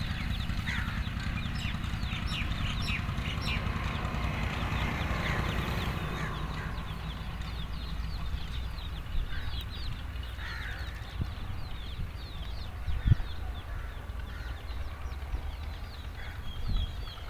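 Hen clucking while her chicks peep continuously in many short, high chirps, over a steady low rumble. A single sharp knock comes about three-quarters of the way through.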